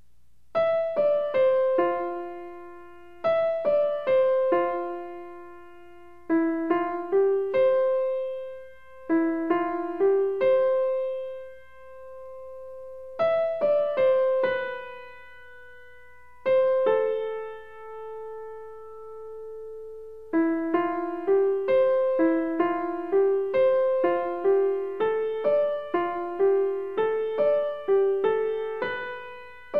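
Background solo piano music: a gentle melody of struck notes that ring and fade, in short phrases. A few long held notes come near the middle, and the notes come quicker and busier for the last third.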